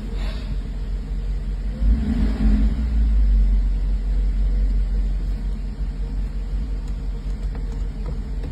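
1984 Mercedes-Benz 380SL's 3.8-litre V8 running steadily with a low note, louder for a couple of seconds about two seconds in. It is running the way it should after its engine control unit was replaced, no longer idling rough.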